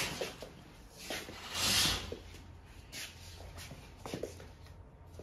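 Soft scuffing and rustling from someone moving about, with a brief louder hiss about two seconds in and a low steady hum underneath.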